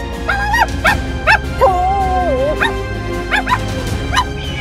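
A dog yipping and whimpering in a string of short, high calls, with one longer wavering whine a little under two seconds in, over background music.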